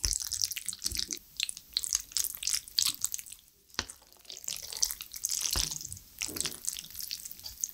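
Wooden chopsticks stirring thick, saucy black bean noodles and breaking raw egg yolks into them: an irregular run of wet, sticky squishing with small clicks.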